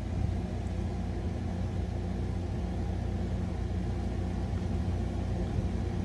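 A steady low mechanical hum with a rumble underneath.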